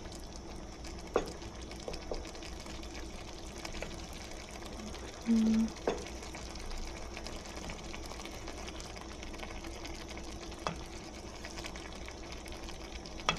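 Eggs frying in a pan with a steady sizzle over a low hum, and a few light clicks of a utensil. A short low tone sounds about five seconds in.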